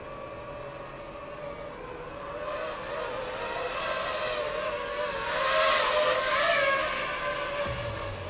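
DJI FPV quadcopter's propellers whining with a wavering pitch, growing louder as the drone flies close by, loudest about five and a half to six and a half seconds in, then easing off.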